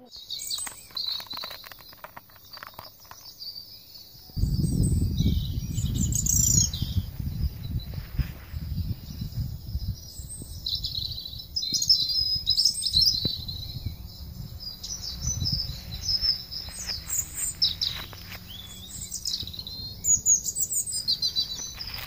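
Small songbirds chirping and trilling, with light rustling as litter is handled in a gloved hand. About four seconds in, a low rumble sets in on the microphone and stays the loudest sound.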